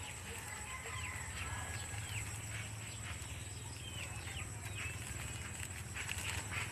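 Birds calling with short chirps, several times, with rustling of leaves and plastic near the end.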